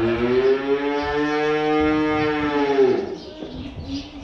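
A barn animal's long call: one loud, drawn-out call of about three seconds, its pitch arching gently and falling away as it ends.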